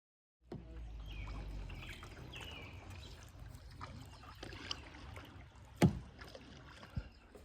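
Canoe paddling: water trickling and splashing off the paddle, with a few faint high chirps in the first couple of seconds and one sharp knock about six seconds in.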